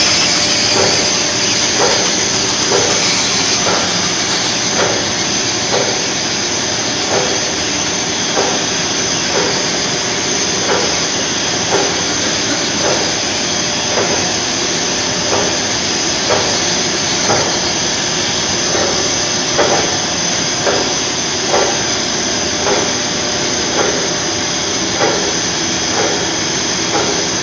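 Film slitting and rewinding machine running at speed: a steady whirring hiss from the film web and rollers, with a soft knock repeating about once a second.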